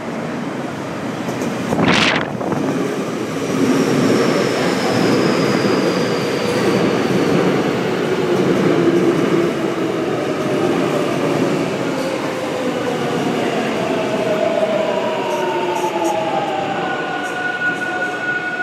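Seoul Subway Line 7 electric train pulling into an elevated station: a steady rumble of wheels on track, with a brief sharp burst of noise about two seconds in. Falling electric motor whines follow as the train slows, and a steady high squeal starts near the end as it brakes toward a stop.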